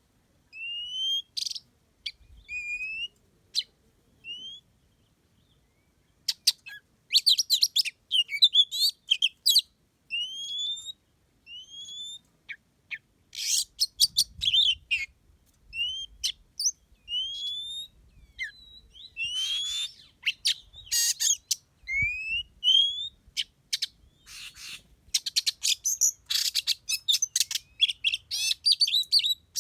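Songbirds calling: short, clear rising whistles repeated every second or so, mixed with bursts of fast chattering notes that grow busier in the second half.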